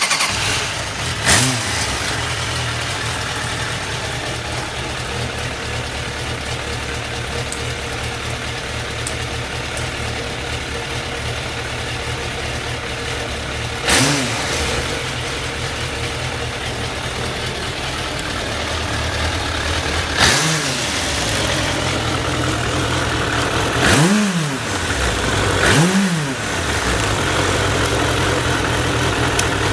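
Suzuki GSF1200S Bandit's air/oil-cooled inline-four engine catching on the first press of the starter, then idling steadily, blipped five times with short rev-ups that drop straight back to idle. Idle is even, with no abnormal noise.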